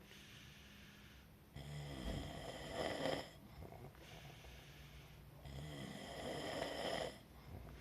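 Loud snoring: two long snores about four seconds apart, each swelling toward its end.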